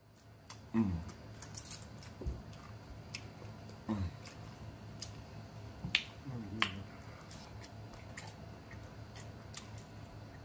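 Close-up eating sounds from people eating chicken wings: wet lip smacks and chewing clicks, with a few short grunts that fall in pitch.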